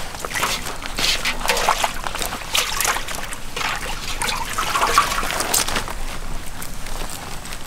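Several pairs of hands pulling wet feathers off chickens over banana leaves: irregular wet squelching, tearing and rustling, in uneven bursts.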